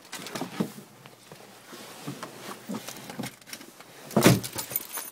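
Rustling and handling noises with scattered soft knocks as a person climbs into a small car's seat, and one louder thump about four seconds in.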